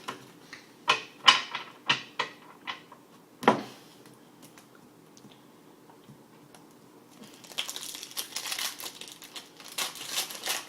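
Trading cards being handled: several sharp clicks and snaps as cards are flicked and shuffled, then about three seconds of dense crinkling near the end, like a foil card-pack wrapper being handled.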